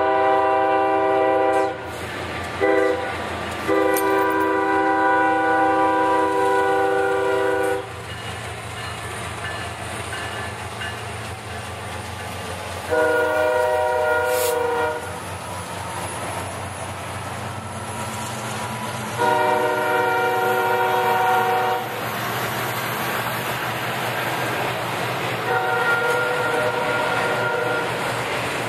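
BNSF diesel freight locomotive's air horn sounding for the crossing as it comes in: a long blast that ends about two seconds in, a short one, then a long one. Three more blasts follow at intervals as the train moves on, the last one fainter. Underneath, auto-rack freight cars rumble and clack along the rails.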